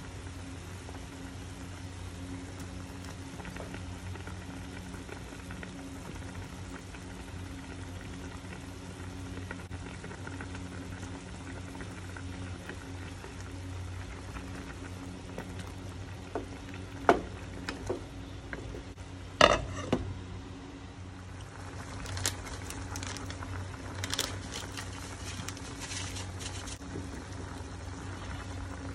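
Tinola, a chicken and green papaya broth, simmering and bubbling in a pot on the stove, over a steady low hum. Midway there are a few sharp knocks, the loudest a little after halfway and again about two and a half seconds later, followed by lighter clicks.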